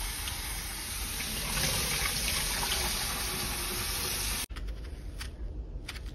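Kitchen faucet running water into a saucepan of cut potatoes while they are rinsed of starch and the water is tipped off into the sink. The water stops abruptly about four and a half seconds in, followed by a few sharp clicks of a knife cutting an onion.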